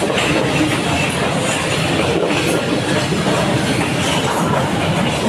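Train passing at close range, a loud, steady rumble and rattle of railway cars running along the track.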